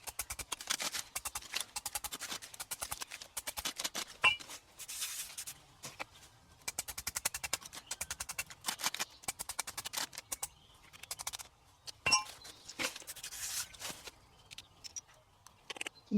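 Rapid clicks and scrapes of a hand tool digging into rocky ground, in runs with short pauses, with a sharper knock about four seconds in and another about twelve seconds in.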